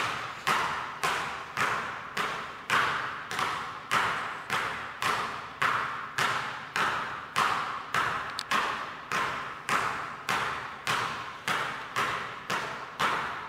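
Two basketballs dribbled together on a hardwood gym floor, both hitting at the same moment in a steady rhythm of nearly two bounces a second, each bounce echoing in the gym.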